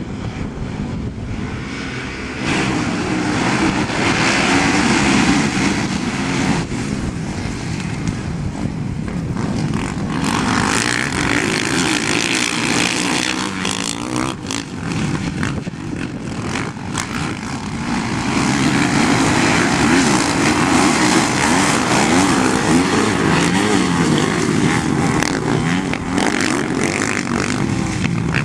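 Dirt bike engine running and revving, its pitch rising and falling. It gets louder a couple of seconds in, eases off through the middle with a few knocks, and gets louder again in the second half.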